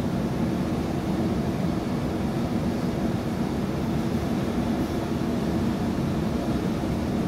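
Electric suburban train running at speed, heard from inside the carriage: a steady low rumble.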